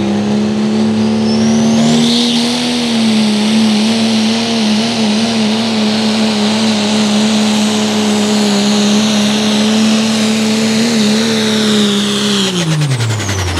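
Engine of a pulling truck or tractor running flat out at a steady high pitch under load on the pull, wavering slightly, then dropping away sharply near the end as it comes off the throttle.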